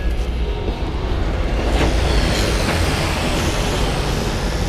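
Road traffic: a vehicle goes by, growing louder about two seconds in and then easing off, over a steady low rumble.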